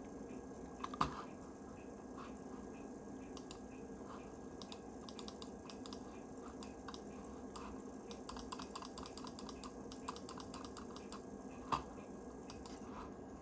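Clicking of an Apple USB keyboard and puck mouse: bursts of light key clicks, densest through the middle, with two sharper mouse-button clicks about a second in and near the end, over a faint steady hum.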